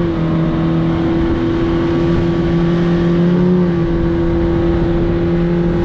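A 50 hp outboard motor on a speedboat running fast, with a steady engine note over the rush of hull and wake water. Its pitch drops slightly right at the start and shifts a little again about four seconds in.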